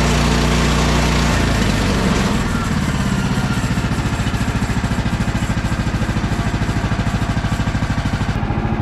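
Small gasoline engine of a Woodland Mills portable band sawmill running, first at a higher speed and then dropping to a slow, even idle about a second and a half in. It has just been restarted after sitting for about three months, and it runs well.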